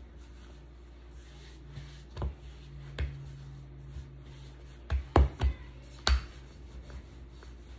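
Sharp knocks and thumps on a granite countertop as pie dough scraps are pressed into a ball by hand and a rolling pin is picked up, with a cluster of louder knocks about five to six seconds in.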